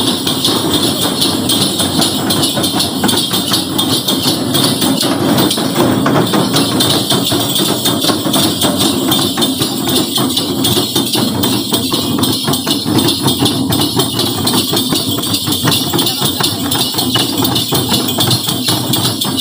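Likurai dance drumming: tihar, small Timorese hand drums held under the arm, beaten in a fast, steady rhythm, with a constant jingling over it.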